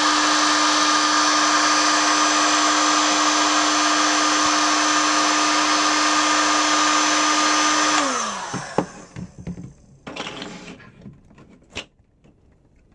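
Electric heat gun running with a steady fan hum and hiss. About eight seconds in it is switched off and winds down with a falling whine, followed by light clicks and knocks of printed plastic parts being handled.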